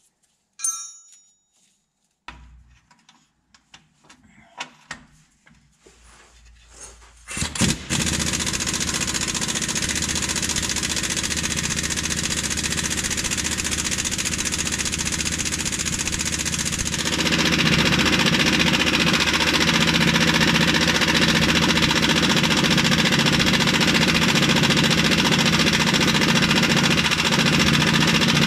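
A few faint tool clicks, then a machine starts abruptly with a couple of knocks about seven seconds in. It runs steadily and gets louder about ten seconds later.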